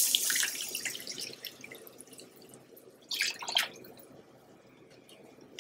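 Chicken stock poured from a glass measuring cup into a hot roux in a saucepan, hissing and bubbling as it hits and dying away over a couple of seconds. A second, shorter pour splashes in about three seconds in as the cup is emptied.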